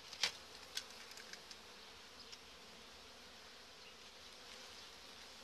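Honey bees buzzing steadily on the frames of an open hive. A sharp click about a quarter second in and a few lighter clicks over the next two seconds come from handling the plastic feed bag laid over the frames.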